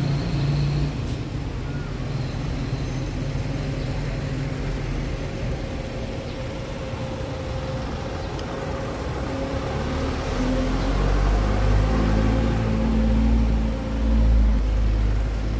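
Street traffic: motor vehicle engines running, with a low rumble that grows louder about ten seconds in.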